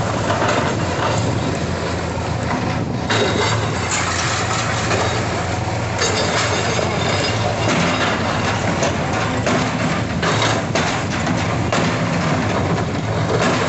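Komatsu PC210 excavator's diesel engine running steadily while its bucket breaks through brick and concrete walls, with repeated cracks and crashes of falling masonry.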